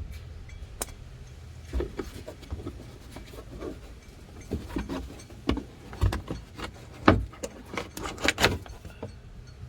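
Scattered clicks, knocks and rattles of plastic and tools as the access hatch in a pickup's front wheel-well liner is handled and opened, the loudest knock about seven seconds in and a quick run of clicks just after, over a steady low rumble.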